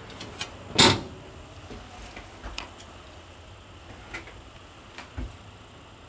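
A single hard clunk about a second in, like a cover or cabinet door being shut. It is followed by a few lighter clicks and knocks and a short low thump near the end.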